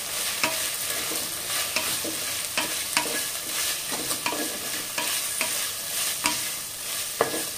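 Onions and green chillies sizzling in ghee in a pressure cooker. A wooden spatula stirs them, scraping and knocking against the metal pot about twice a second.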